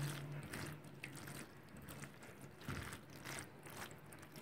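Spatula stirring cooked macaroni through a thick cheese sauce in a glass pan: faint, wet squelching strokes repeating every second or so.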